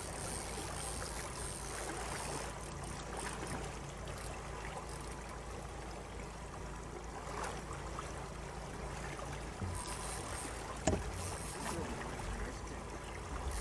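Water sloshing against a fishing boat's hull with wind noise and a steady low rumble, and a single sharp knock about eleven seconds in.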